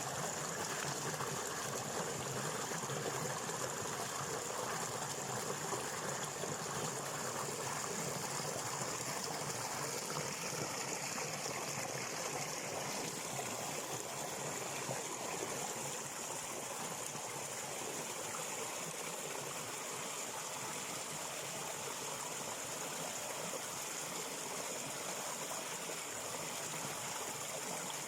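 A stream of running water, flowing and trickling steadily, easing slightly about halfway through.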